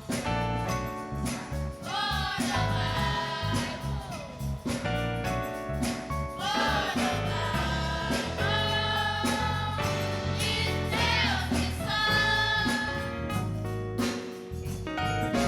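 Gospel choir singing with instrumental accompaniment, over a steady bass and drums.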